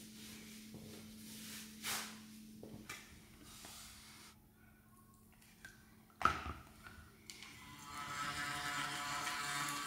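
Small handling sounds and a sharp click a little after six seconds, then an electric toothbrush switched on about eight seconds in, buzzing steadily while brushing teeth.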